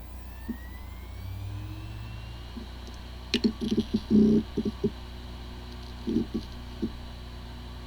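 Hard drive spinning up with a rising whine over a steady hum, then two clusters of short clicks and knocks, about three and six seconds in. It sounds like a healthy drive, yet the drive has disk firmware corruption and the computer cannot detect it.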